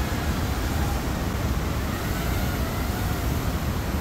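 Steady roar of a waterfall, an even rushing noise with a deep rumble underneath.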